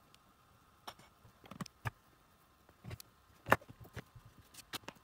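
Scattered small clicks and taps as hands handle the Sony WM-E23RL remote's plastic housing, circuit board and thin wires on a work mat, with one sharper knock about three and a half seconds in.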